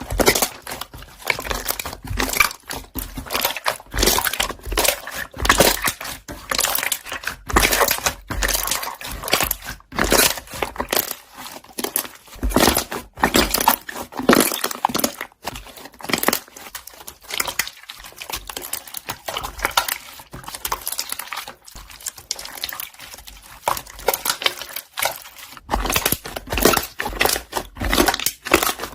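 Slime being pressed and kneaded, its trapped air bubbles popping in rapid, irregular clicks and crackles.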